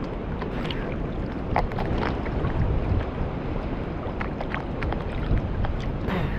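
Wind rumbling on the microphone over water, with scattered small splashes and sloshing as someone moves through a lagoon.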